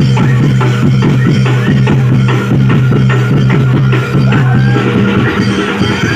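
Live reog and jaranan dor percussion music: fast, dense drumming over a steady low ringing tone that fades about five seconds in.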